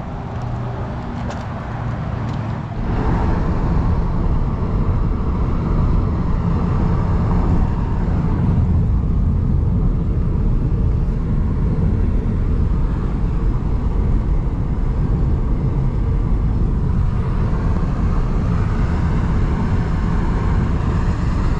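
Car driving on a highway: a steady rumble of road and wind noise. It gets louder about three seconds in.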